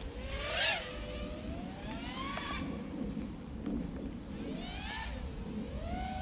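Eachine Twig 115 3-inch toothpick quadcopter's motors and propellers whining, the pitch sweeping up and down in repeated throttle surges, loudest about half a second in, over steady low noise.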